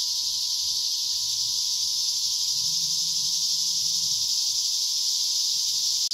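Cicadas buzzing in a dense, steady chorus, the loudest sound, with a faint steady whine underneath.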